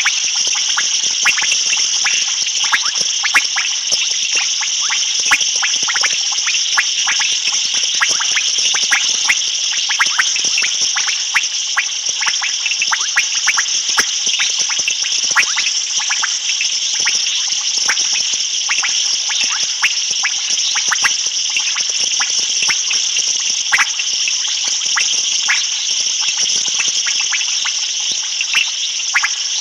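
Night chorus of frogs and insects at a waterhole: a steady high-pitched trill, with many short frog calls popping over it throughout.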